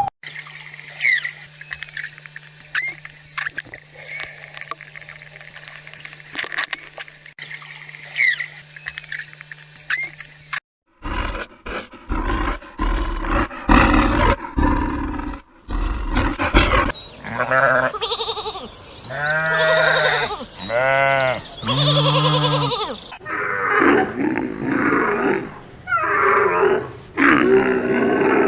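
Animal calls in two parts. For the first ten seconds or so there are short chirping calls over a steady hum. About eleven seconds in they give way to loud, harsh roaring and growling calls of a large animal, drawn out and rising and falling in pitch.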